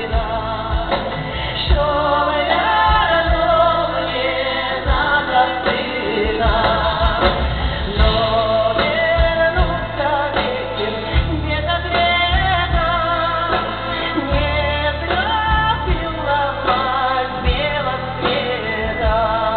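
A live pop song: a woman singing with vibrato over a backing band with bass and drums.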